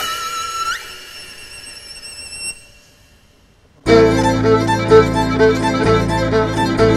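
Live violin holds a wavering note, slides up about a second in and fades out over a sustained keyboard chord. After a brief near-silent pause, the full band comes in loudly just before the four-second mark: drum kit, a low keyboard bass line and a repeating piano riff under the violin.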